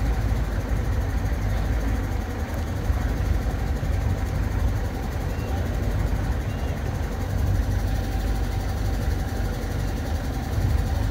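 A boat's motor running steadily at low cruising speed, a constant low rumble.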